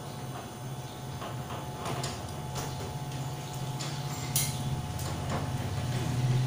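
Scattered light clicks and taps of hands and tools working on a window-type air conditioner's metal casing, with a sharper tick about four and a half seconds in, over a steady low machine hum.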